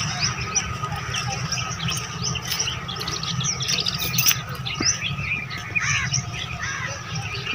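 A chorus of many small birds chirping and calling at once, with short high chirps tumbling over each other throughout, over a steady low rumble.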